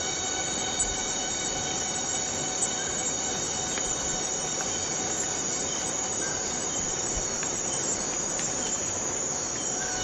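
Rainforest cicadas singing in chorus: a continuous shrill drone of several steady high pitches over a dense hiss.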